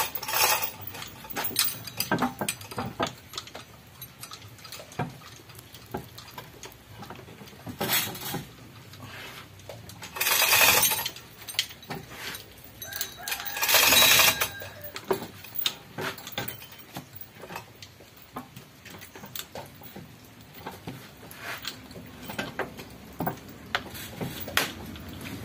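Chain hoist rattling and clicking, with scattered metal clinks and knocks, as an engine hung from it is lowered and guided into the engine bay. It is broken by two louder noisy bursts of about a second each, around ten and fourteen seconds in.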